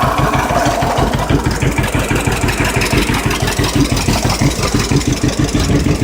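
1951 John Deere B two-cylinder tractor engine idling with a steady, even popping beat.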